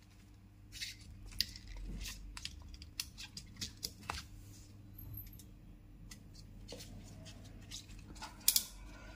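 Gloved hands handling wires and pushing a motor connector onto an air-conditioner circuit board: a scatter of small clicks and rustles, the sharpest near the end, over a faint steady low hum.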